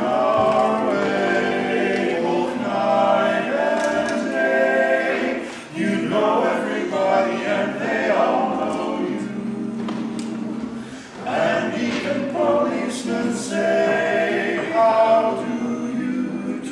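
Male barbershop quartet singing a cappella in close four-part harmony, with short breaks between phrases about six and eleven seconds in.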